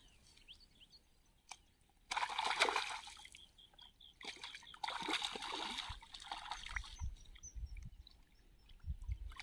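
A hooked snakehead thrashing at the surface of shallow, weedy water, splashing in two bouts: one of about a second, a couple of seconds in, and a longer one from about four to seven seconds in.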